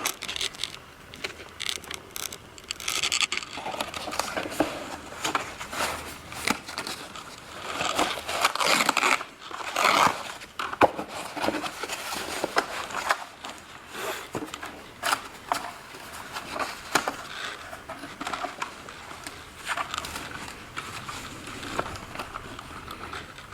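Irregular handling noise: rustling and crinkling, scraping and scattered light knocks and clicks as things are moved about by hand.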